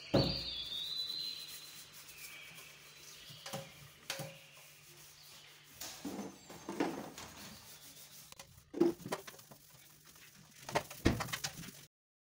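Stiff brush scrubbing a stainless steel sink, with clinks and knocks of cups and dishes being handled, the loudest near the end; the sound cuts off suddenly just before the end.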